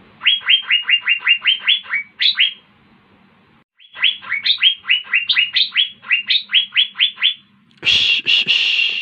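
Asian fairy-bluebird (cucak biru) singing: two runs of quick whistled notes, each note falling in pitch, about four or five a second, with a short pause between the runs. A harsh, rasping burst of about a second follows near the end.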